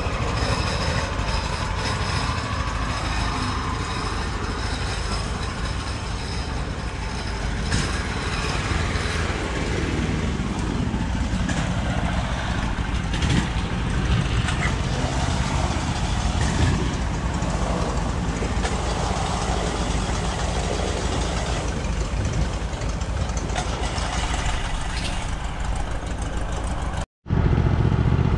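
Mud boat surface-drive engines running steadily under way. The sound cuts out for a moment near the end and returns louder.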